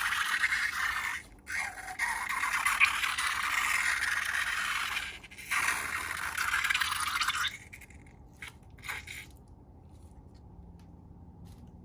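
Dry, continuous scraping and rattling of loose material, broken twice by short pauses, that stops about seven and a half seconds in and gives way to a few faint clicks.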